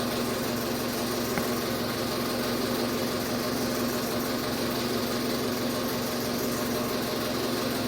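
A steady mechanical hum with a constant low drone that does not change, and a single faint tick about a second and a half in.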